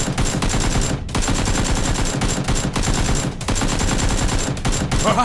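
Rapid automatic gunfire sound effects: sustained volleys of fast shots, breaking off briefly about a second in and again around three and a half seconds in.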